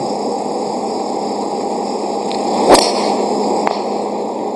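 Driver striking a golf ball off the tee: one sharp crack nearly three seconds in, the loudest sound, with a short rising rush just before it. A fainter click follows about a second later over a steady outdoor hiss.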